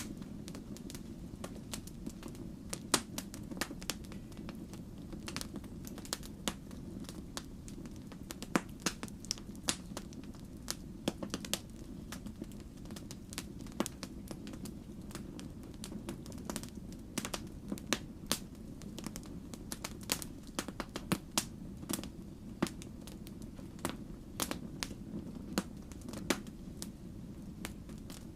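Log fire crackling in a fireplace: irregular sharp pops and snaps of burning wood over a steady low rumble.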